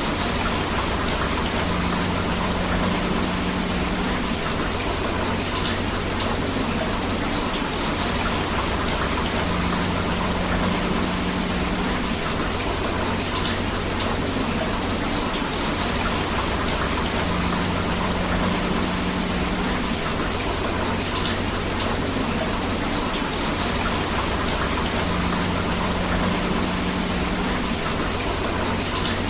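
Steady rain mixed with rushing river water, a dense, even hiss. The same faint low pattern recurs about every eight seconds, as in a looped recording.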